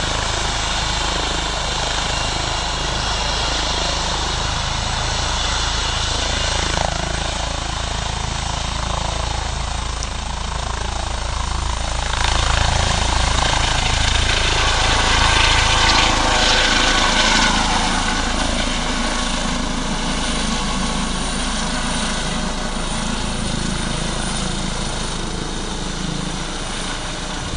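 Helicopter running with its rotor turning, then lifting off: the engine and rotor noise grows louder about twelve seconds in as it rises and blows up snow, then eases off as it climbs away overhead.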